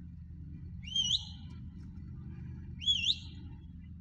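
Two short whistled calls about two seconds apart, each sweeping upward, over a steady low engine rumble.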